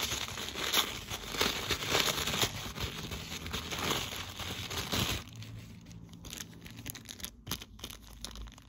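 Tissue paper crinkling and rustling as it is unwrapped, dying down about five seconds in to a few faint crinkles from a small plastic zip bag being handled.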